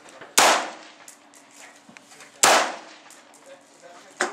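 Two rifle shots about two seconds apart, each a sharp crack with a short ringing tail, followed near the end by a fainter sharp report.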